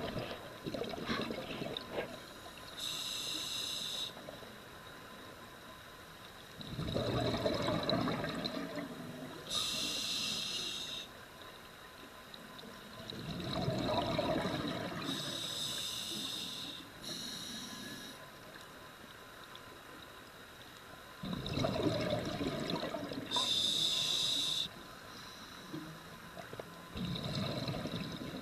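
Scuba diver breathing through a regulator underwater: a short hiss on each inhale through the demand valve, then a longer rumbling burst of exhaled bubbles, about four slow breaths.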